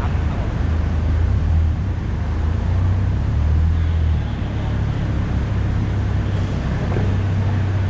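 Steady low engine rumble of a car, with an even hiss of road or traffic noise over it.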